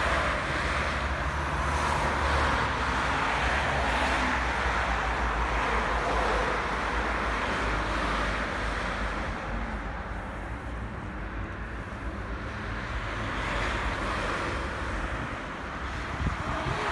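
Road traffic on a riverside road: a steady wash of tyre and engine noise that swells as cars pass near the start and again near the end, with a low rumble underneath.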